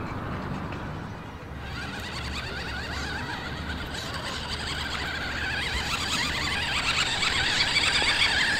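Toy remote-control quad bike's small electric motor and plastic gearbox whirring with a wavering pitch, getting louder as it drives closer.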